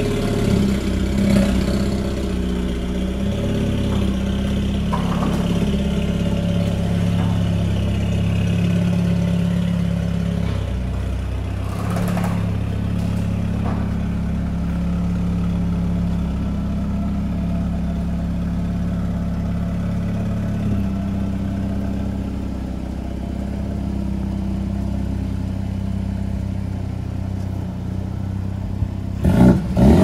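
Mercedes-AMG CLA 35's 2.0-litre turbocharged four-cylinder running steadily at idle through a 200-cell catless downpipe with the particulate filter deleted. Near the end come a few loud, sudden bursts with a falling pitch.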